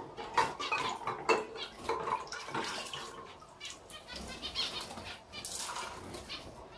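Small pet finches fluttering inside a wire-mesh cage: a run of short wing flurries and light rattles of the cage wire, loudest in the first second or so.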